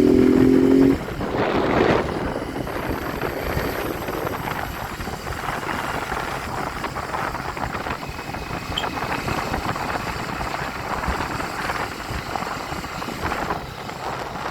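Motorcycle on the move in traffic: wind rushing over the microphone over engine and road noise. A horn sounds in two steady notes for about the first second, then cuts off.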